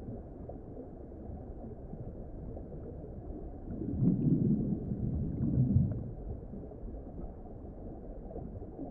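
Underwater ambience: a steady low rumble, swelling into a louder low bubbling burble about four seconds in that fades by about six seconds, typical of a scuba diver's exhaled bubbles from the regulator.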